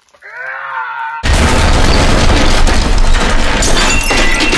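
A short pitched cry, then a sudden loud explosion about a second in: a heavy boom and blast of rumble that holds for a couple of seconds and then eases off. A building alarm begins beeping near the end.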